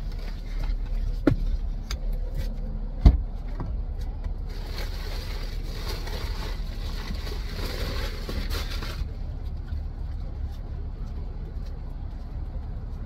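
A large plastic postal sack of packages rustles for several seconds as it is pulled out through a car's rear window, over a steady low vehicle rumble. Two thumps come in the first few seconds, the second the louder.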